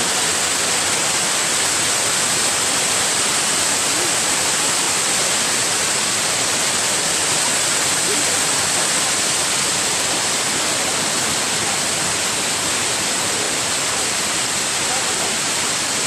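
Kuang Si waterfall's cascades rushing steadily into their pools, an even, unbroken hiss of falling water.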